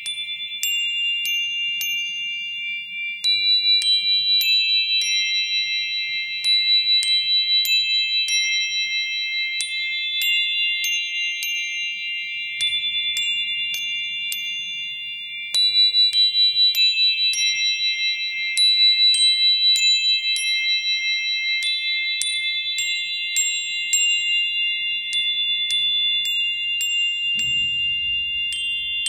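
Gentle ambient music: several sustained high tones held under frequent short, bright, chime-like pings.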